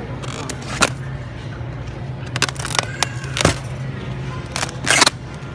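Packaged crab legs and a shopping cart being handled: several sharp clicks and knocks, with a louder rustle near the end, over a steady low hum.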